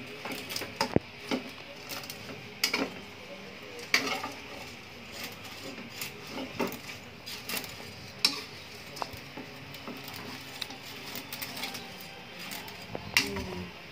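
Metal spatula clinking and scraping against a metal wok as noodles are stirred and tossed, with irregular knocks, the loudest about a second in, at four, at eight and near the end.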